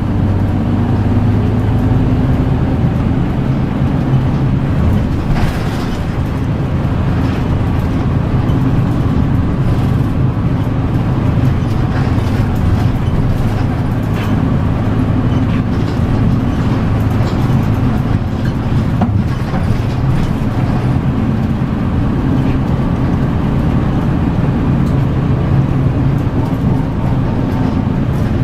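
Diesel engine of a route bus running while it drives at moderate speed, with its pitch rising and falling slowly, heard inside the passenger cabin over steady road and tyre noise.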